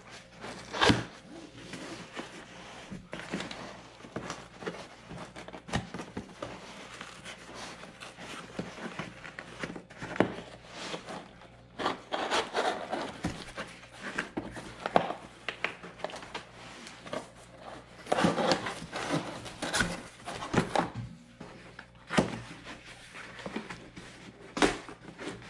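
Packaging being handled on a table during an unboxing: irregular rustling and scraping with scattered light knocks and taps.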